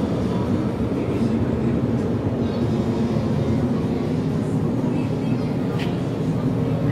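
LTS infrared kerosene space heater running: the steady, even low rumble of its fan-driven burner.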